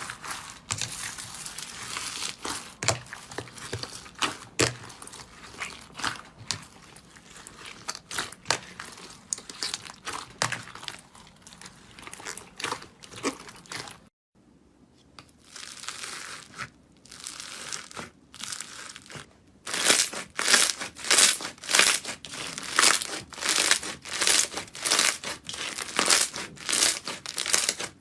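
Slime being squeezed and pressed by hand, crackling and crinkling with many small clicks and pops. It breaks off briefly about halfway, then comes back as a louder, steady run of pops, roughly two a second.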